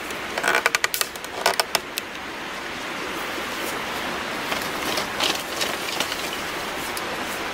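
A quick run of sharp wooden clicks and knocks in the first two seconds, then a steady scraping hiss, from hands-on work with bamboo.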